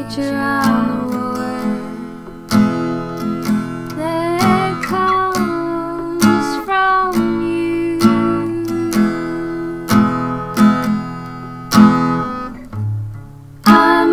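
Acoustic guitar playing, its chords plucked and strummed, with a voice singing over it in places.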